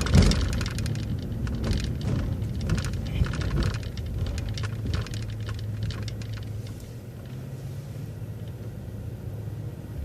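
MCO ViewMaster transit bus's diesel engine running with a steady low hum, heard from inside the bus, with a quick run of clicks and rattles over the first few seconds before it settles a little quieter.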